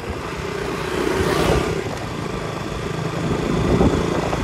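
Motorcycle engine running steadily as the bike rides along, with road noise and a brief swell about a second and a half in.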